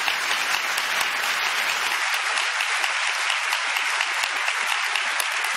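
Audience applauding, a dense and steady patter of many hands clapping.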